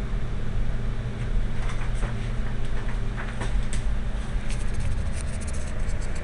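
Alicante FGV tram running: a steady low rumble with scattered sharp clicks and squeaks, thickest about two thirds of the way through.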